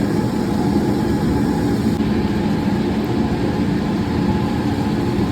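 Steady drone of the neighbouring boiler's burner firing, a low, even machine hum with no change.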